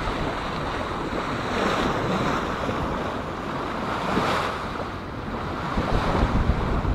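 Wind buffeting the microphone over water rushing past a sailboat's hull as it moves through a calm sea, a steady noise that swells slightly about four seconds in.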